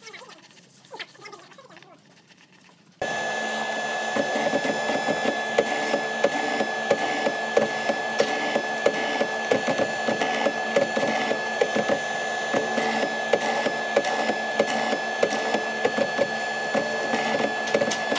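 Hollow-chisel mortising machine running and boring a mortise into a hardwood block: a steady motor sound with a constant high whine and a dense crackle of wood chips. It starts abruptly about three seconds in, after a few seconds of only faint knocks.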